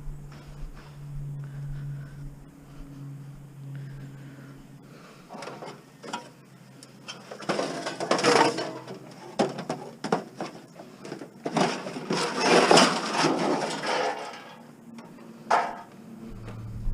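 Scrap metal being handled and moved: scattered knocks, with two longer, louder stretches of clatter about halfway and two-thirds through.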